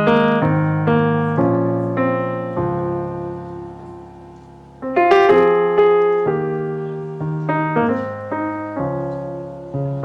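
Solo piano playing slow chords as a ballad's intro: full chords struck at the start, about five seconds in and again at the end, each left ringing and fading, with single notes moving in between.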